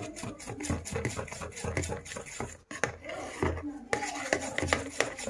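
Spoon stirring thick cocoa cake batter in a small glass bowl, scraping and clicking against the sides in quick repeated strokes, with a brief pause about halfway through.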